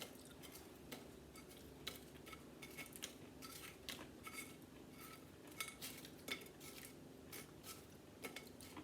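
Faint, irregular crisp clicks and light clinks, a few a second, from crunchy microwave-dried potato chips.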